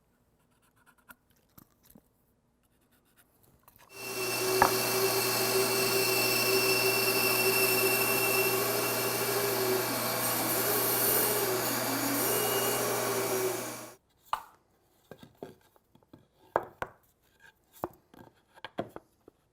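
A power tool runs for about ten seconds, its steady hum dipping in pitch a few times as it bites into the work, then stops suddenly. Light knocks and clicks of handling follow.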